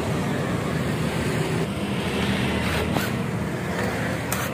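Steady low rumble of a motor vehicle engine running nearby. Near the end come a few short, sharp bursts as a cordless drill-driver works on the muffler's mounting bolts.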